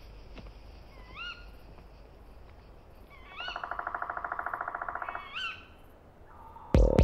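Bird calls: a short rising call repeated about every two seconds, and a fast pulsing trill lasting about two seconds in the middle. Near the end a sharp, loud click, then music begins.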